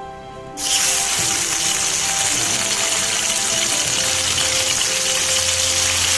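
Raw turmeric-coated katla fish pieces going into hot oil in a kadai. A sudden loud sizzle starts about half a second in and then runs on steadily as the fish fries, with soft background music underneath.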